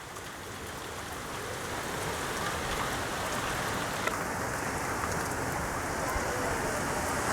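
Rain from a thunderstorm pouring down, a steady hiss that grows gradually louder as the downpour strengthens, with scattered ticks of drops striking nearby surfaces.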